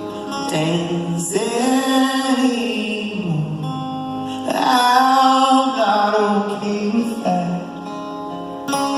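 Live band music: a voice singing a slow, gliding melody over acoustic guitar.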